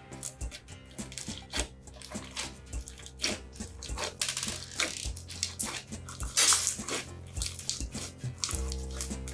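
Thick slime with small beads mixed in, squished and kneaded by hand, giving a stream of irregular wet squelches, sticky pops and crackles, densest a little past the middle.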